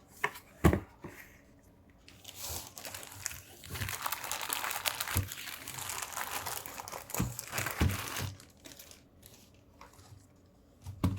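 Packaging crinkling and rustling as a new keyboard is unwrapped from its wrapping, after a couple of sharp knocks in the first second. The crinkling runs for several seconds, then dies down near the end.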